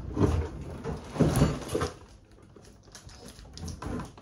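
A kitchen sink wrapped in plastic film being handled on a stone worktop: film rustling and the sink knocking against the surface. The louder knocks come in the first two seconds, followed by quieter rustling and handling.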